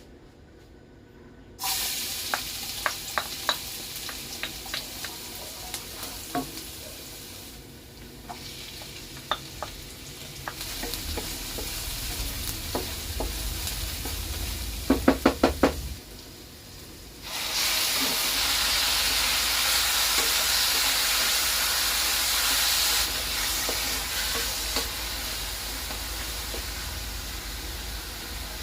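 Food sizzling in a hot pan while being stirred, with light taps and clicks of the spatula on the pan. About halfway through come a quick run of taps, a brief lull, then a louder, steadier sizzle.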